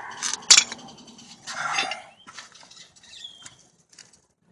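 Metal brake parts being handled: two sharp metallic clanks about half a second in, a scraping rasp a second later, then lighter clicks. These are most likely the worn-out front brake pads coming off the caliper bracket.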